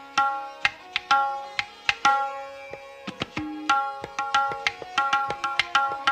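Tabla playing: ringing, pitched strokes on the right-hand drum (dayan) in a steady rhythm, about two main strokes a second with quicker strokes in between. A deeper stroke from the left-hand bass drum (bayan) comes a little past halfway.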